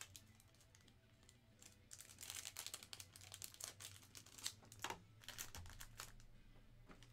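Plastic packaging of a new pack of thick trading-card sleeves crinkling as it is opened and handled, a run of quick faint crackles, thickest in the middle few seconds.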